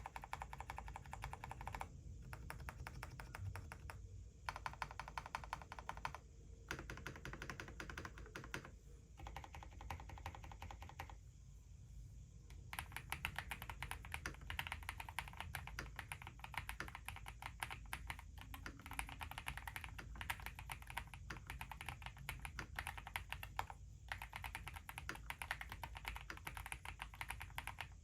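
Mechanical keyboard with Haimu Midnight switches and CMK Classic Blue keycaps being typed on quickly and continuously, a dense run of keystroke clacks broken by a few short pauses, the longest about eleven seconds in.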